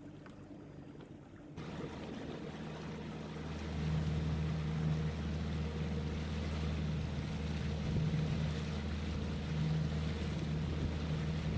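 Motorboat engine running under way, its steady low drone picking up about a second and a half in and louder still from about four seconds, over the rush of water and wind.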